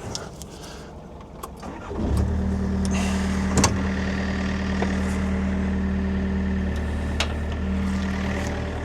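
Excavator's diesel engine starts about two seconds in and settles into a steady idle, with a few sharp metallic knocks over it.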